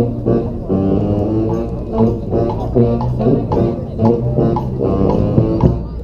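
Street brass band playing a New Orleans brass-band tune: horns in rhythmic phrases over a low, repeating bass line.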